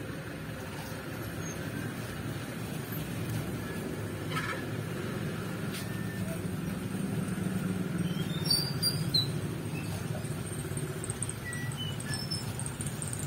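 Small motor and plastic gears of a battery-powered walking toy dog whirring steadily as it runs.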